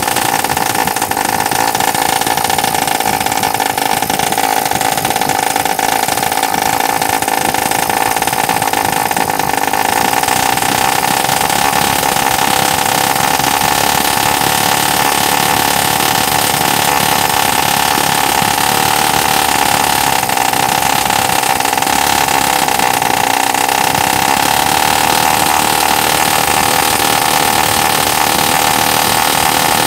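Homemade miniature single-cylinder two-stroke engine, air-cooled with a finned cylinder and running on a gasoline-and-oil mix, running steadily at high speed with a high buzz. It gets a little louder about a third of the way in.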